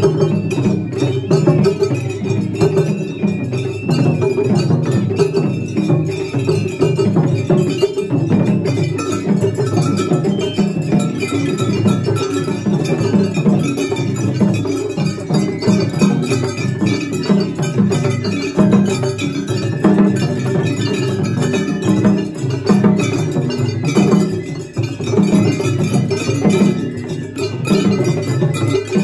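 Japanese festival float ohayashi: taiko drums and a small hand-struck gong beating a fast, unbroken rhythm.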